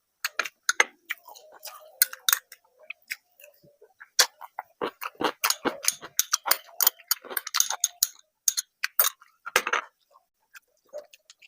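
Close-miked chewing and mouth sounds of someone eating rice and curry: a rapid, irregular string of wet clicks and smacks, thickest in the second half.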